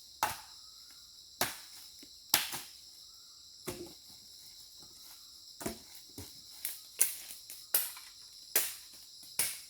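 A steady chorus of crickets, with a series of sharp, irregular knocks over it, about one or two a second.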